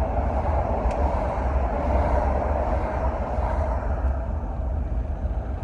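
Steady low rumble and hum of a truck driving slowly in rush hour traffic, heard from inside the cab.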